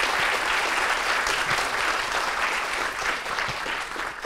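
Audience applauding at the end of a talk, a dense patter of many hands that thins out toward the end.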